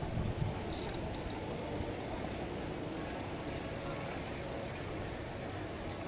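Steady city street ambience: an even background hum and hiss with no distinct events.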